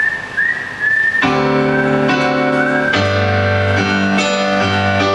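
Instrumental break of a live pop band: a high, whistle-like melody line with slides between notes, then about a second in piano or keyboard chords and bass come in and carry on.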